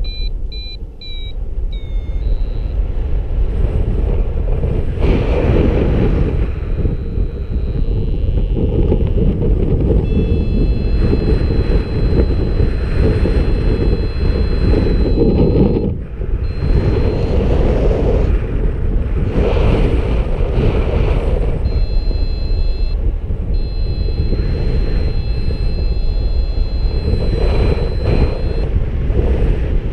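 Strong wind buffeting the microphone of a paraglider in flight. Over it, the variometer's high electronic tones: short beeps at the start, then longer held tones for several seconds in the middle and again near the end.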